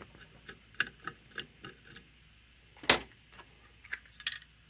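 Small metal carburetor parts and tools clicking and clinking as they are handled: a run of light clicks, then a louder sharp knock about three seconds in and another clink near the end.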